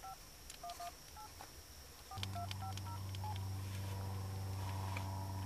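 Flip phone's keypad tones as a number is dialled: a quick run of about ten short two-note beeps with small key clicks, ending about three seconds in. A steady low hum starts abruptly about two seconds in and runs on.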